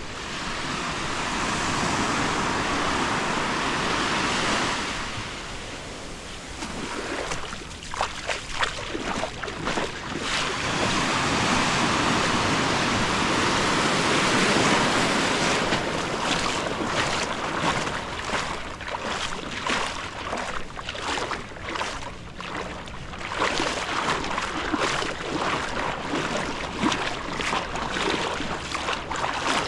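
Sea surf breaking and washing up a beach, swelling loud about a second in and again around ten seconds, then going on more unevenly.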